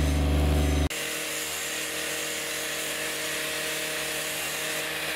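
Hired site generator running with a steady low hum that cuts off abruptly about a second in. Then comes a quieter, steady high whirring hiss.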